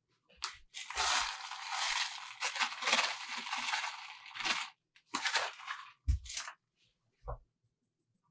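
Sugar poured from a paper bag into a fine-mesh metal sieve: a hiss of pouring grains with crinkling paper for about four seconds, then a shorter rustle and two soft low knocks.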